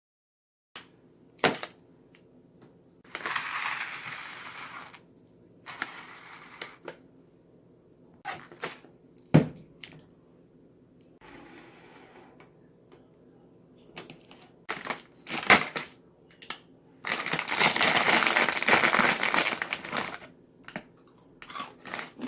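Handling noises: several sharp knocks and bursts of rustling or crinkling, the longest lasting about three seconds near the end, over a steady low hum.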